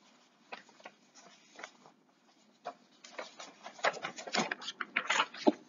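A quick run of small clicks and taps, sparse at first and thickening into a dense cluster in the last two seconds, ending with a louder knock.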